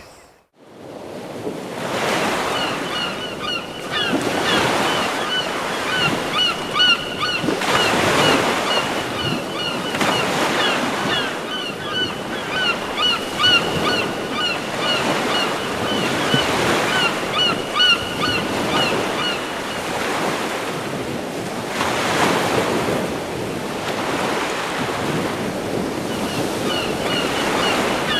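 Samsung Galaxy S III nature-sound ringtone: recorded surf washing in slow surges, with birds calling in quick repeated chirps over it. It begins just after a brief silence.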